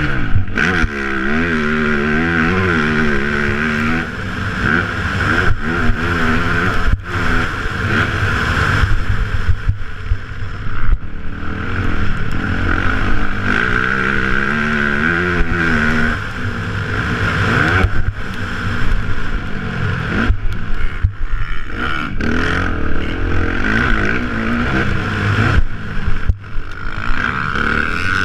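Motocross dirt bike engine revving up and easing off again and again while ridden hard on a dirt track, with wind rushing over a helmet-mounted microphone. The throttle briefly shuts off several times.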